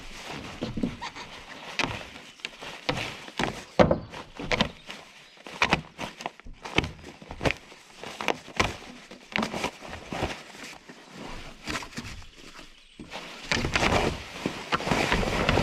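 Plastic roofing membrane rustling and crackling as it is spread out by hand over a plank deck, with irregular knocks from boots and knees on the boards. The rustling grows denser near the end as the sheet is lifted up.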